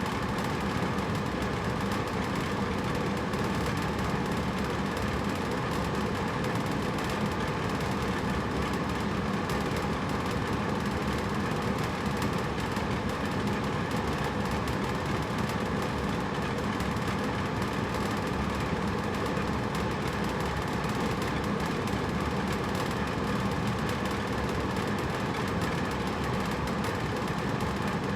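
Hotel room air conditioner running steadily: an even rush of air from the fan over a low, unchanging hum.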